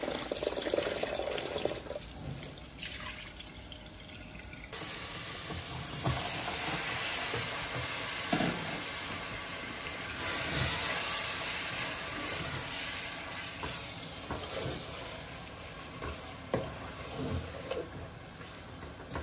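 Tap water running into a plastic bowl as raw chicken pieces are rinsed by hand in a stainless-steel sink. About five seconds in, the sound changes suddenly to chicken sizzling in hot oil and spices in a pot, louder for a moment about ten seconds in, with occasional knocks as it is stirred with a spoon.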